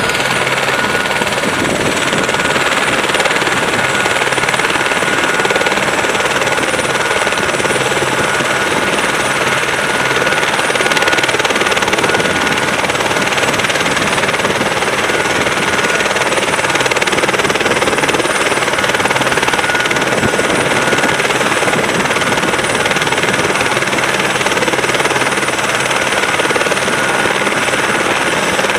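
Écureuil (AS350-family) turbine helicopter running at close range with its main rotor turning, a steady high turbine whine over loud rotor and engine noise.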